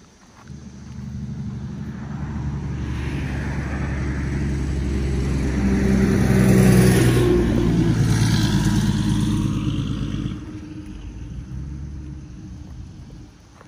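A motor vehicle driving past: engine and tyre noise swell to a peak about seven seconds in, then fade, dropping away sharply near the end.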